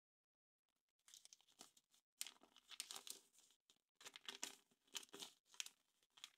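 Foil wrapper of a Kinder Surprise egg being torn and peeled off, crinkling in several spells with brief pauses, starting about a second in.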